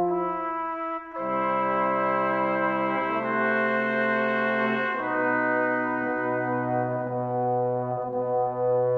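Slow instrumental background music of long held chords that change every couple of seconds, with a short break about a second in.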